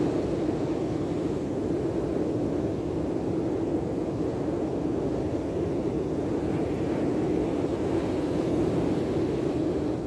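Steady rush of wind blowing over the microphone, mixed with the roar of breaking sea surf.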